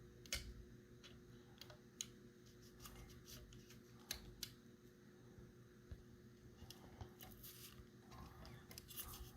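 Faint scattered clicks and soft rustling from handling the recessed light's plastic parts, with a low steady hum of room noise.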